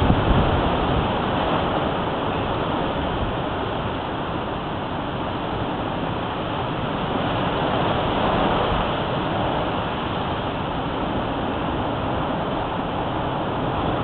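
Storm-force wind rushing steadily through trees and shrubs, swelling in gusts near the start and again about eight seconds in, with wind buffeting the microphone.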